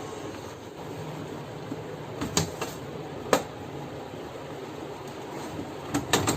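A steady low hum with a few sharp clicks and knocks: a pair a little over two seconds in, a single louder one about a second later, and a quick cluster near the end.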